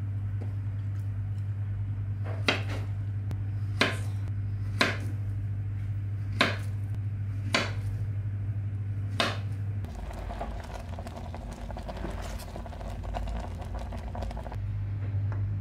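Knife slicing a peeled banana on a wooden cutting board: six sharp knocks of the blade on the board, about a second apart, over a steady low hum. About ten seconds in, milky liquid simmering in a pot as it is stirred with a wooden spoon, a soft bubbling noise.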